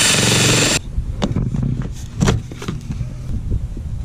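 Ryobi cordless drill with a 2-inch hole saw cutting into a boat's casting deck, loud, stopping suddenly about a second in. After it come a series of light clicks and knocks as a plastic flush-mount rod holder is handled and set into the cut hole.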